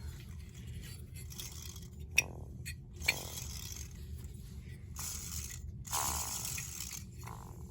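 Handling noises from the metal parts of a disassembled siren: two sharp clicks with a brief metallic ring about two and three seconds in, then scraping and rustling, over a steady low hum.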